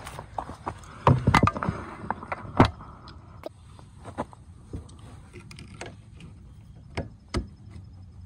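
Scattered clicks and knocks of hand tools and parts being handled at an ATV's engine bay, as pliers are picked up to squeeze a hose's ring clamp. The loudest knocks come in a cluster about one to three seconds in, with fewer, lighter clicks after.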